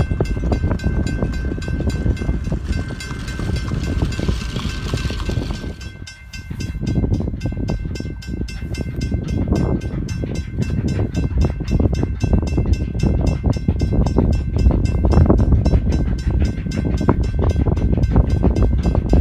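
Train running by, the ex-Canadian National No. 89 steam locomotive and its cars, with strong wind rumbling on the microphone. A fast, regular clicking sets in about six seconds in, after a brief lull.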